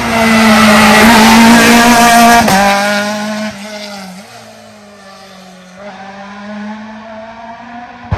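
Rally car's engine at full throttle passing close by. It is loudest for the first two and a half seconds, then drops suddenly in pitch and level as it goes past, and fades as it drives away, swelling briefly again about six seconds in.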